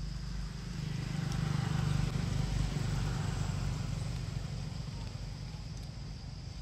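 Low rumble of a passing motor vehicle, swelling to its loudest about two seconds in and then slowly fading.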